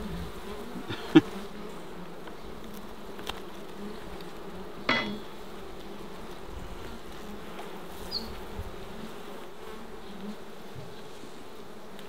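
Honey bees buzzing in a steady hum around an opened hive as brood frames are moved. A sharp knock about a second in and a smaller one near five seconds.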